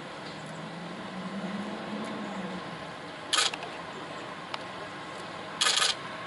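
Steady outdoor background hiss with a faint low engine hum in the first couple of seconds, then two short, sharp bursts of noise, one about three seconds in and a slightly longer one near the end.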